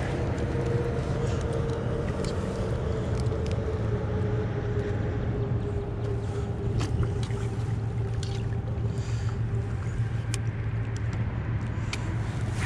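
Fishing kayak under way: a steady low hum with a faint tone that slowly drops in pitch, and scattered light clicks.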